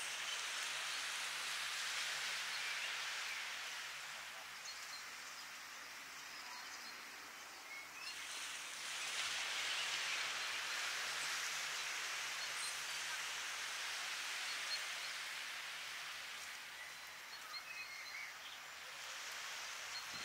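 Gentle ocean waves lapping and washing over a shallow sandy beach: a steady hiss that swells and eases, dipping and then rising again about eight seconds in.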